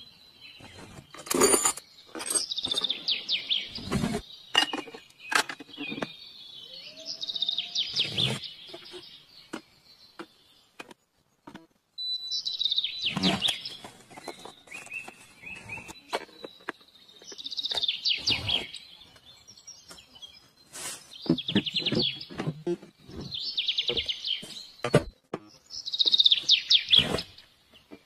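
Bird-like chirping in short high trilled bursts every few seconds, with scattered sharp clicks and knocks.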